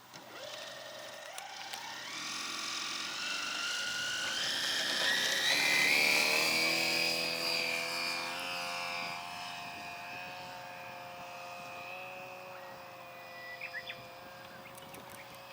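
Radio-controlled aerobatic model airplane's motor and propeller in flight. It rises in pitch and grows louder to a peak about six seconds in, then holds a steady tone that fades slightly.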